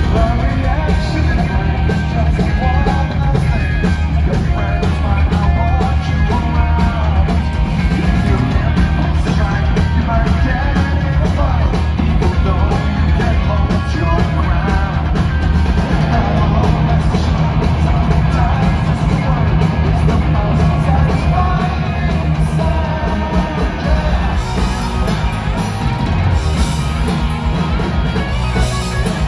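Punk rock band playing live: distorted electric guitars, bass and drum kit, with the singer's shouted vocals over them, heard from the audience.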